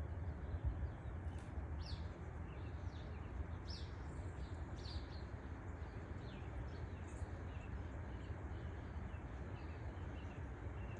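Small birds chirping: short, high chirps in quick succession, thick for the first five seconds or so and then thinning out, over a steady low background rumble.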